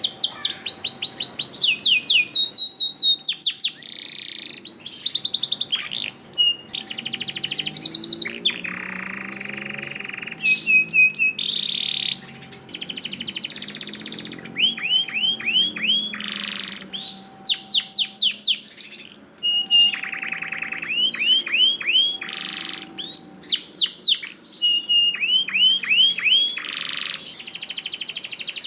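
Domestic canary singing a continuous song: fast runs of repeated falling notes, buzzy trills and rolls, switching phrase every second or two.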